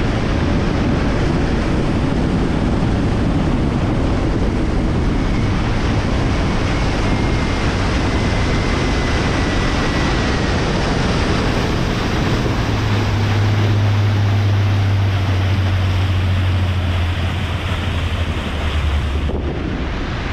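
Wind buffeting the microphone and water rushing past the hull of a fishing boat under way. A steady low engine hum comes up in the second half, and the sound breaks off abruptly near the end.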